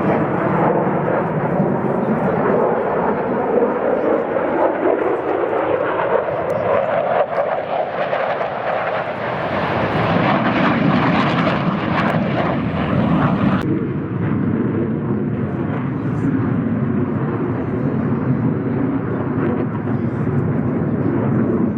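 Airplane engine noise during an air-show flypast. It grows brighter and louder to a peak about ten to twelve seconds in, and its high hiss drops away suddenly about fourteen seconds in.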